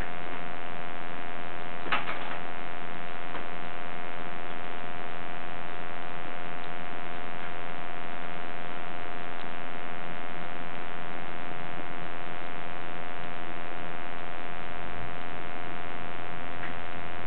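Steady electrical hum with many evenly spaced overtones, and a faint click about two seconds in.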